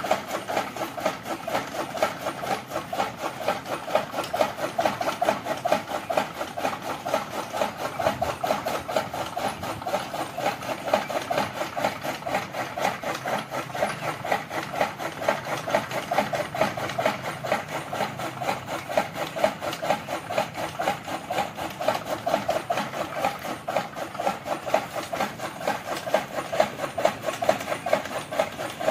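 Bull-driven gear toka fodder cutter running, its flywheel blades chopping green fodder as it is fed in, in a rapid, steady run of chopping strokes.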